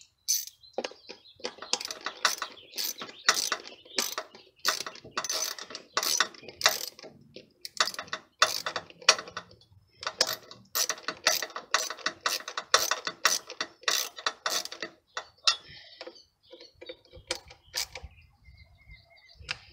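Socket ratchet wrench with a 5/16 socket clicking over and over as it is swung back and forth, tightening a bolt on the air filter housing of a Briggs & Stratton engine. The clicks thin out to a few scattered ones near the end as the bolt comes tight.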